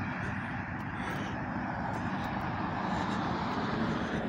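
Steady road traffic noise from cars on a busy multi-lane road.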